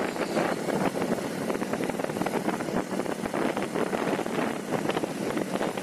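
Wind rushing and buffeting over the microphone on a moving motorised two-wheeler, a steady rough noise with irregular gusty flutter, with road and engine noise underneath.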